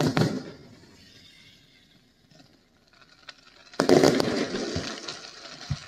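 Fireworks bursting overhead: a loud bang at the start that fades over about a second, a quiet lull, then another loud burst about four seconds in with a dense crackle that dies away.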